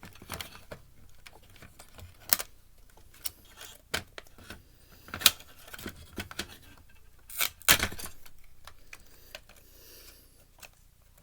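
Scattered clicks and knocks of a Blu-ray player's plastic and metal parts being handled while it is taken apart, with a few sharper knocks about two, five and seven and a half seconds in.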